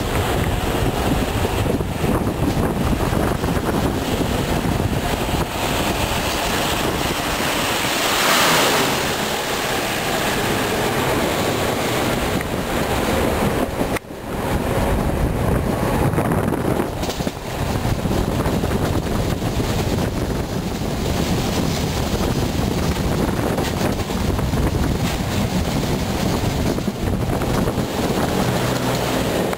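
Wind rushing over the microphone held out of a moving train's window, with the train's running noise underneath; steady throughout, swelling louder about eight seconds in and dropping briefly around fourteen seconds.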